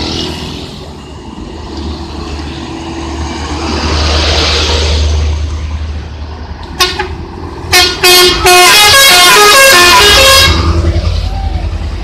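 Telolet multi-tone musical horn on a passing truck: two short toots about a second apart, then a quick run of stepping notes lasting about two and a half seconds, the loudest sound. Engine and tyre noise from traffic passing close by before and after the horn.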